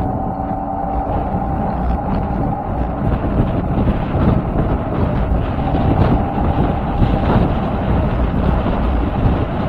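Wind buffeting an AKASO action camera's microphone while riding along a road, over a steady low rumble of tyres on tarmac.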